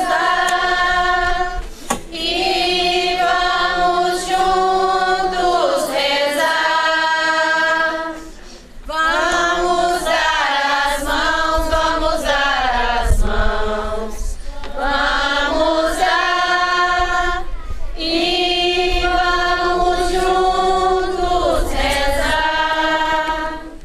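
A group of people singing a hymn together, in long sung phrases with short breaks between them.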